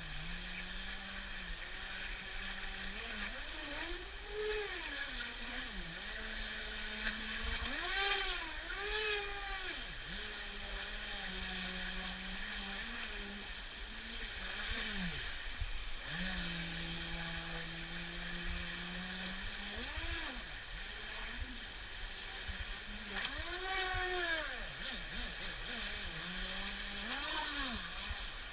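Radio-controlled boat's motor whining, its pitch sweeping up and down again and again as the throttle is worked, between stretches held at a steady lower hum.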